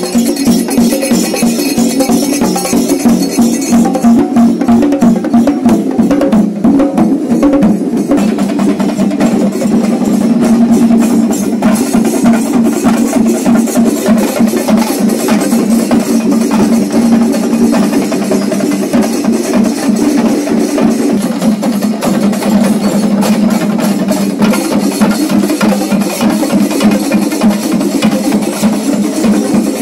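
Kerala temple-festival percussion ensemble (chenda melam): chenda drums beaten with sticks in a fast, dense, unbroken rhythm, loud throughout.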